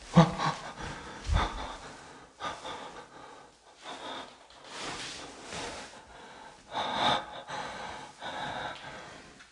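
A person breathing close to the microphone: irregular, noisy breaths.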